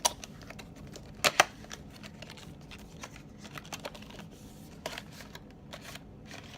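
Earphone retail packaging being opened and handled, cardboard and plastic parts giving scattered clicks and small scrapes as the contents are worked out of the box. The loudest is a pair of sharp clicks about a second in.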